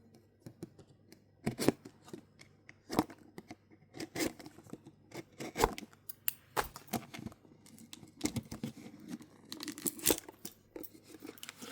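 Toy packaging being torn open and crinkled by hand: a run of irregular rips and crackles.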